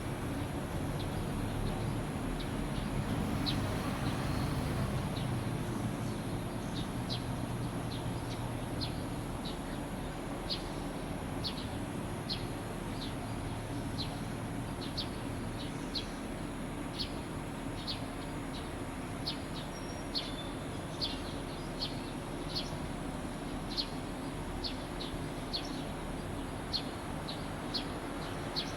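Edible-nest swiftlets chirping: short high chirps repeating at an even pace, about three every two seconds, over a steady low rumble.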